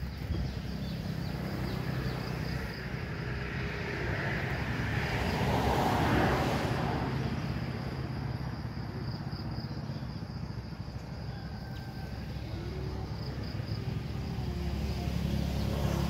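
Outdoor background: a motor vehicle passes, swelling to its loudest about six seconds in and fading, over a low steady rumble and a continuous high insect trill.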